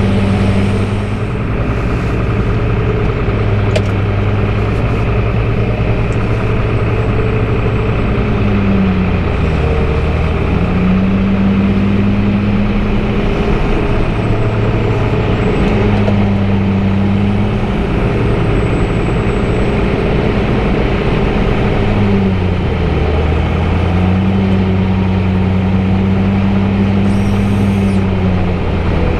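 Big diesel engines of a hay tub grinder and its feeding tractor running steadily, a loud low drone. Twice, about 13 seconds apart, the pitch sags briefly and recovers, as an engine takes on load from the hay.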